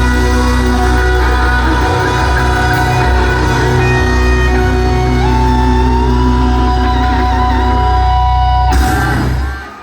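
Live heavy metal band playing, with an electric guitar lead holding long notes over heavy bass and drums. A final crash comes near the end, and the music stops.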